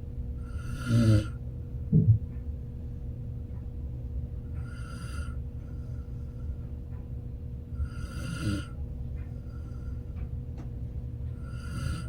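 Slow, steady snoring: four hissy, rattling breaths about every three and a half seconds, with a short, loud, low snort about two seconds in.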